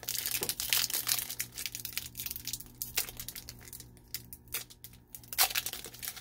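Foil wrapper of a Pokémon trading-card booster pack being torn open and crinkled by hand: a run of crackling rustles, thinning out for a moment about four seconds in.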